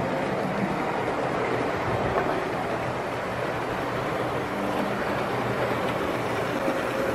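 Wrenn OO-gauge West Country model locomotive hauling nine coaches around the layout: a steady rumble of the motor and the wheels running on the rails.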